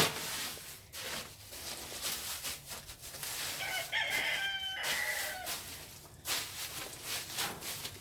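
A rooster crows once, about halfway through, a call of roughly a second and a half. Around it is a rustle of loose pine shavings being scuffed and kicked around.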